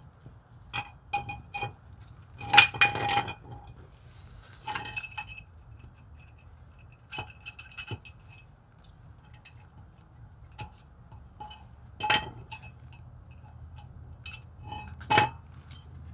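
Metal brake parts and tools clinking and tapping against each other in scattered sharp clinks, each with a short ring. The loudest run of clinks comes about two and a half seconds in, with another strong clink near the end.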